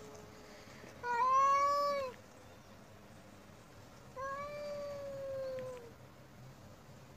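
Domestic cat yowling in a standoff with another cat: two long, drawn-out yowls, the first about a second long and the second about a second and a half, each dropping in pitch as it ends.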